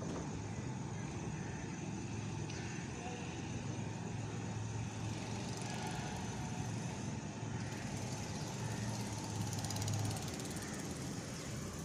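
Steady low rumble of a train approaching in the distance, with a constant low hum and no sharp noises.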